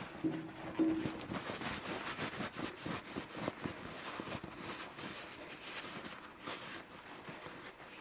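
Blue paper shop towel rustling and crinkling in the hands as a metal gun part is wiped dry, with a short steady tone near the start.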